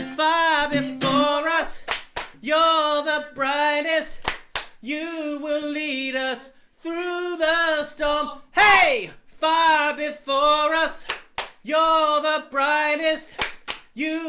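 A man's voice sings unaccompanied, wordless held phrases, with a falling vocal swoop about nine seconds in. Sharp body-percussion hits come between the phrases, several times.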